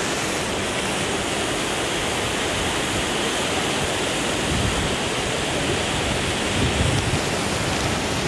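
Steady rushing of river rapids. Gusts of wind rumble on the microphone in the second half.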